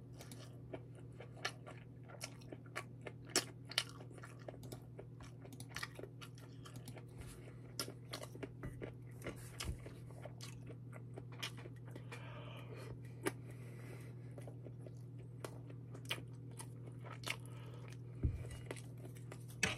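A person chewing food close to the microphone, with many small crunches and mouth clicks, over a steady low hum.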